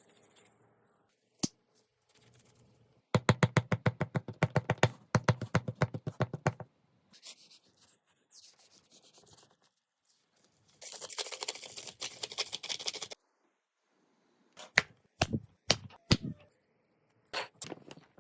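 Kitchen food-prep sounds: a fast, even run of knocks on a cutting board, about eight a second for a few seconds; then a few seconds of hissing; then several sharp clicks and taps.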